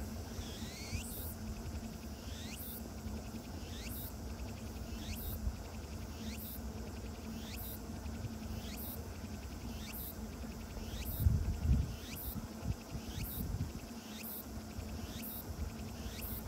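A summer insect calling outdoors in a regular series of short, rising, high-pitched chirps, about one a second, over a steady low rumble of outdoor background. About eleven seconds in there is a brief louder low rumble.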